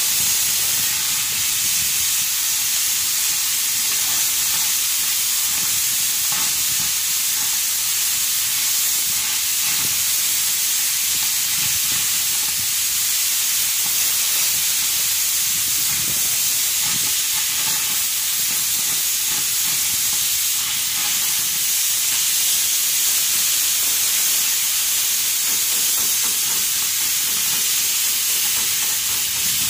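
Steady crackling hiss of a stick-welding arc together with an angle grinder grinding steel, both running without a break, on a loader bucket's teeth.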